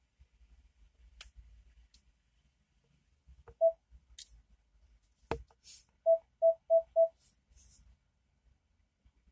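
Short electronic beeps at one mid pitch: a single beep, then a quick run of four. Two sharp clicks fall between them.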